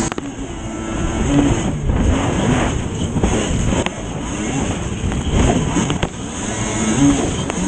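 Yamaha WaveBlaster personal watercraft's two-stroke engine running hard under racing throttle, its pitch rising and falling as the hull skips over chop, with water spray and wind rushing past.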